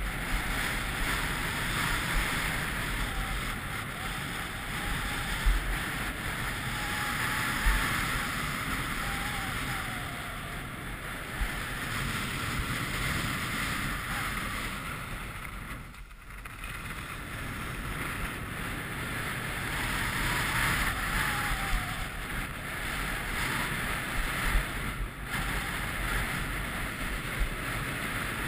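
Continuous hiss and scrape of a board or skis sliding fast over groomed piste snow, mixed with wind buffeting the helmet or chest camera's microphone. It briefly grows quieter about halfway through.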